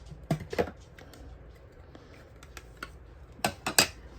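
A few sharp clicks and taps from handling trading cards and their plastic holders: two early on, then a quick run of three near the end.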